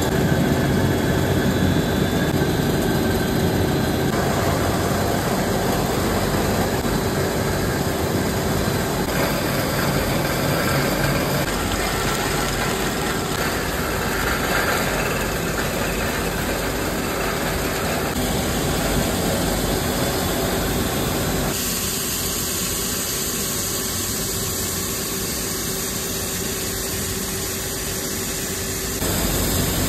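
Snack-factory machinery running: a continuous mechanical hum and hiss from mixers, a belt-driven extruder and conveyors, changing abruptly in tone several times.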